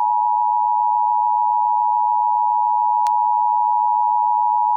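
Emergency Alert System two-tone attention signal: two close tones sounded together as one steady, loud, harsh tone, announcing an alert, here a Required Monthly Test. There is a faint click about three seconds in.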